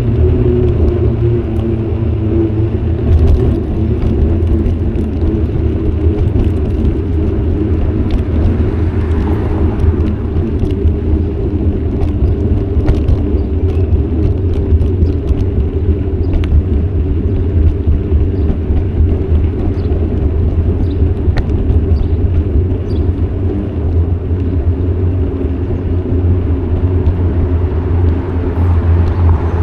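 Steady low wind buffeting and tyre rumble on the microphone of an action camera riding on a moving bicycle, with scattered small clicks and rattles.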